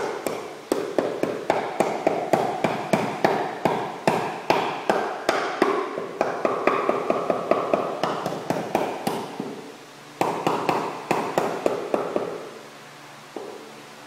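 Hammer blows, struck in a steady run of about two to three a second with a ring after each, pausing briefly about ten seconds in, then a shorter run and one last blow near the end.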